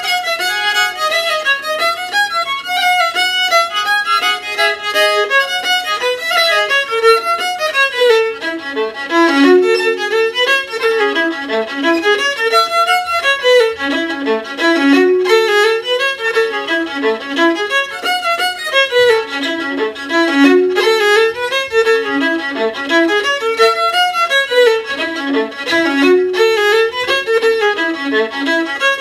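Solo fiddle, bowed, playing a tune in F major in 4/4 time, with runs of short notes rising and falling.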